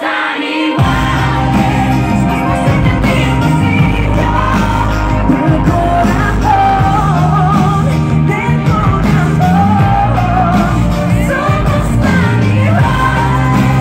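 Live pop song amplified through a PA: a female lead singer's voice over a full band, with the bass line coming in about a second in.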